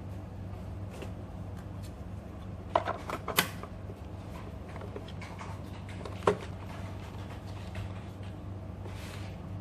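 A few short clicks and taps, a cluster about three seconds in and a sharper one about six seconds in, over a steady low electrical hum.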